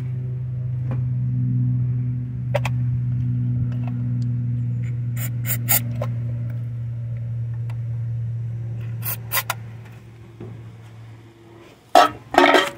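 1986 Chevrolet Caprice Classic's carbureted engine running with a steady drone on starting fluid after sitting a year, growing fainter from about eight seconds in. Light clicks of handling come through, and near the end there is loud scraping.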